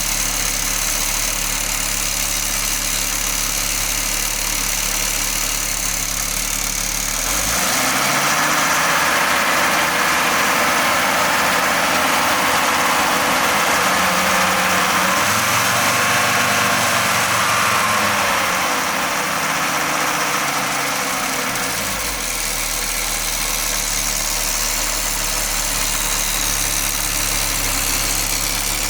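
Audi 20-valve turbo engine idling, then held at higher revs with the pitch rising and falling from about seven seconds in, settling back to idle at around twenty-two seconds. Somewhere in it is an unidentified noise from the exhaust area that the owner is trying to trace; the turbo has been overhauled and ruled out as its cause.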